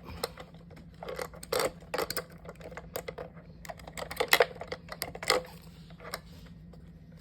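Guitar effects pedals being swapped on a pedalboard: irregular clicks, clacks and rustles of patch-cable jacks being pulled and plugged in and pedals being handled.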